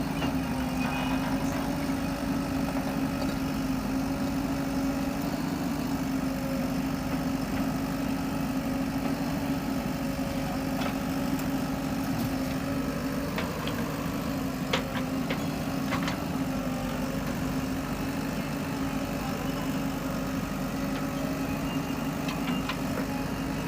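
A diesel engine idling steadily at an even pitch, with a few faint clicks or knocks about halfway through.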